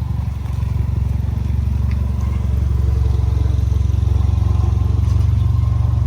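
Ford Mustang EcoBoost's 2.3-litre turbocharged four-cylinder running at low speed with a steady, deep, rumbly exhaust note. The sound comes from an exhaust leak: a resonator joint that slipped apart and a leaking downpipe connection at the turbo.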